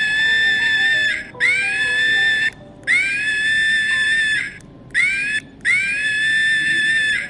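A monkey screaming: a series of high, drawn-out shrieks, each sliding up at the start and then held at one pitch for about a second, repeated five times with short pauses between.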